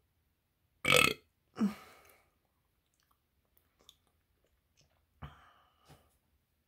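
A person burping loudly about a second in, the burp trailing off into a lower sound that falls in pitch. A quieter sound from the mouth follows a little after five seconds in, with a few small lip clicks in between.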